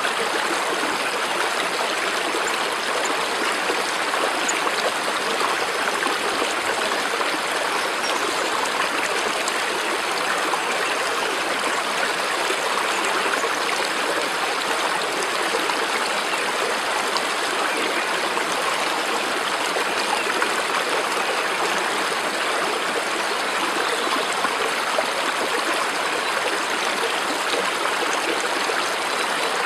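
Water running steadily in a stream, an even rushing flow that does not change.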